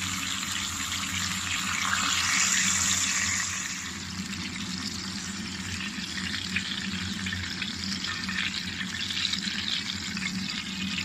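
A whole sea bream frying in hot oil in a pan: a steady sizzle with small crackles and pops. It swells louder for about a second and a half starting two seconds in.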